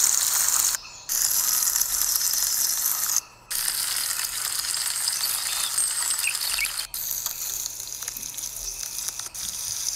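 Chopped onion, capsicum and green chillies sizzling in oil in a kadai while a slotted spatula stirs them, its clicks against the pan heard over the steady hiss. The sound cuts out briefly about one second in and again about three seconds in.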